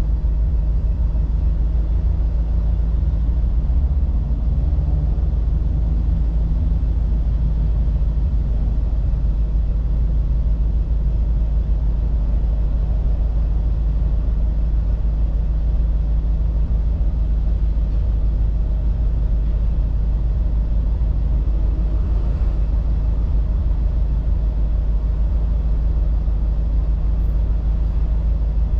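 1948 Mercury's 239 cubic inch flathead V8 running steadily as the car cruises, a low, even rumble with road noise under it.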